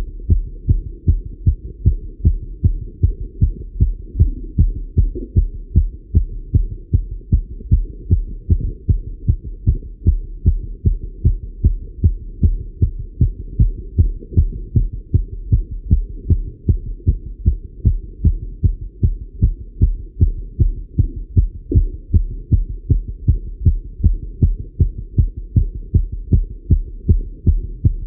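A man's heartbeat heard through a Littmann stethoscope, beating fast and evenly from the exertion of cycling, as a quick run of dull low thumps.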